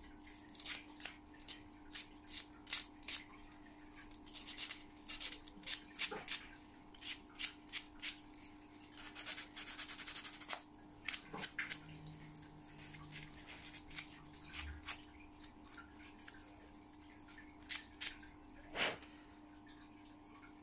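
Sandpaper worked by hand along the cut edge of a small plastic model part: a series of faint, short, irregular scratching strokes, with one longer scrape about ten seconds in, petering out near the end.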